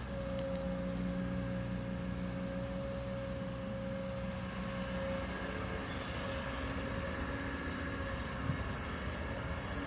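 Kobelco excavator's diesel engine running steadily as the machine works, with a steady higher tone over it that stops about five seconds in.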